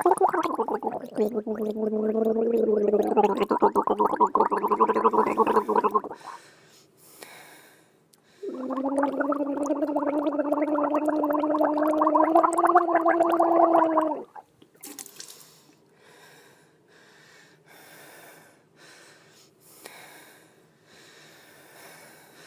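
A person gargling: two long gargles of about six seconds each, with a short pause between, then only faint scattered clicks.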